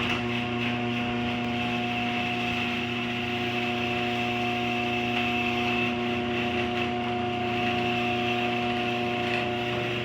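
LiftMaster 8365 chain-drive garage door opener running steadily as it raises the door: a steady motor hum with the noise of the drive, a little noisy.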